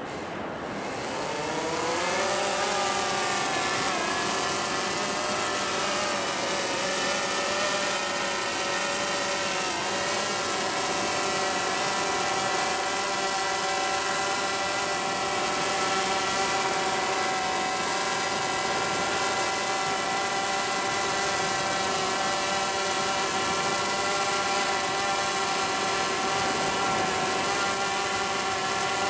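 Quadcopter drone's propellers spinning up as it lifts off from a hand launch, their whine rising in pitch over the first couple of seconds. It then settles into a steady whine as the drone hovers low, carrying a dangling fishing line and bait rig.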